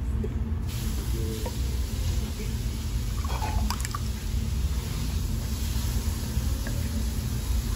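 Carbonated orange soda poured from a can into glasses, splashing and fizzing as they fill. A brief light knock comes a little before the middle, over a steady low background rumble.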